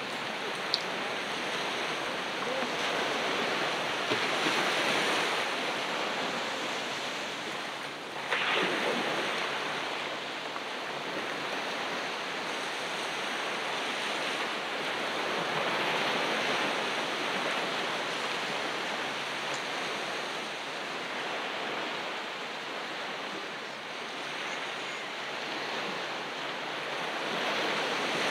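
Ocean surf washing on a beach: a continuous rush of waves that swells and falls back every several seconds, with a sharper surge of a breaking wave about eight seconds in.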